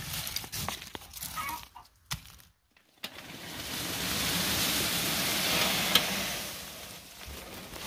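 Chickens clucking while a hand rustles through dry wood chips. After a short break comes a steady rushing noise that swells and then fades, with one sharp click partway through.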